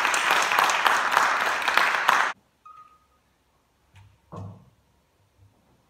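Audience applauding, cutting off suddenly about two seconds in. Then a quiet hall with a brief faint squeak and a soft low thump as the organist sits down on the wooden organ bench.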